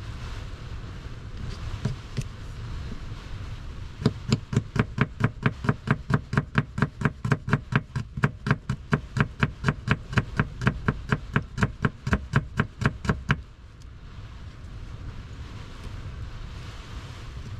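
Small kitchen knife chopping a garlic clove on a paper plate: a quick, even run of sharp taps, about four a second. It starts about four seconds in and stops after about nine seconds, over a low steady rumble.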